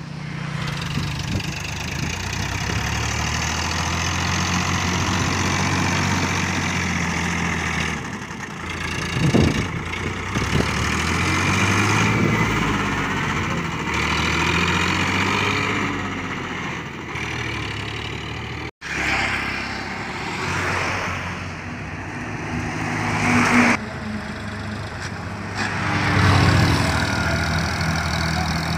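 Sonalika diesel tractor engine running under load, pulling a trailer heaped with sand through loose sand. Its pitch rises and falls as the throttle is worked, with a few louder surges.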